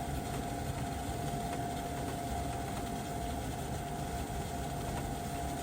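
Gas furnace running through its start-up, its draft inducer motor giving a steady hum with a thin, constant whine.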